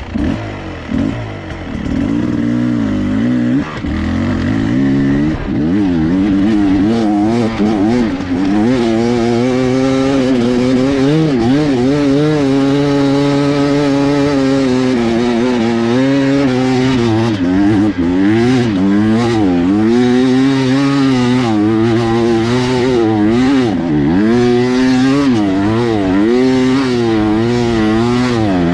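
Dirt bike engine revving up and down again and again as the throttle is opened and eased, choppy for the first few seconds and then running hard.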